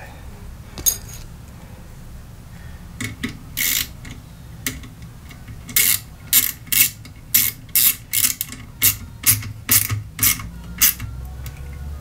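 Hand ratchet wrench clicking in short strokes, about two a second, on the bolts of a washing machine's drive motor, after a few scattered metal clicks.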